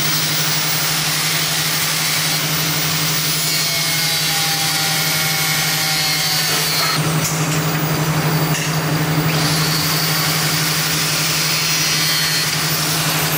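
Handheld angle grinder with a cut-off disc running steadily and cutting through a metal tube: a steady motor hum under a harsh cutting hiss. The hiss eases for a couple of seconds about seven seconds in, then comes back.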